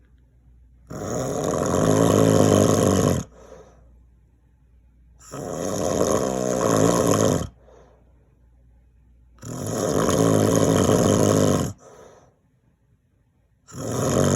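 A man snoring loudly in his sleep: long, rasping snores of about two and a half seconds each, coming roughly every four seconds with quiet gaps between. There are three full snores, and a fourth starts near the end.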